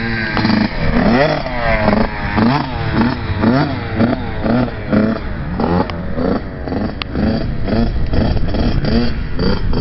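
Kawasaki KX65 two-stroke dirt bike engine revving up and dropping back over and over, about twice a second, as it rides the track.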